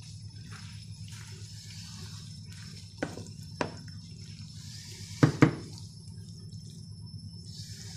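Wooden spatula stirring a thick creamy carbonara sauce and pasta in a frying pan, with soft wet squelching. The spatula knocks against the pan four times, the two knocks about five seconds in the loudest.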